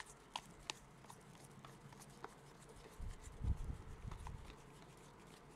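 Faint clicks and light taps of trading cards being handled and sorted, with a soft low thump about three and a half seconds in.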